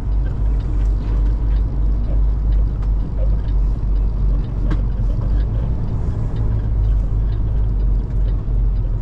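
Semi-truck's diesel engine running at low speed as the rig creeps across a dirt lot, a steady low drone heard from inside the cab, with scattered small clicks and rattles.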